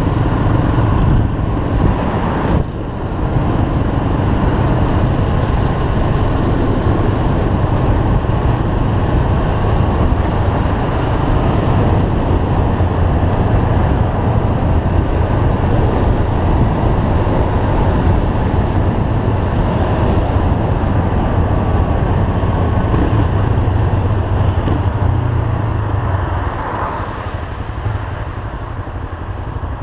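Motorcycle riding along, its engine running under heavy wind rush on the bike-mounted microphone. The sound eases near the end as the bike slows into traffic.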